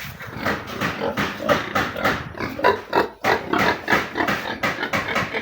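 Pigs grunting, a dense run of short grunts several times a second.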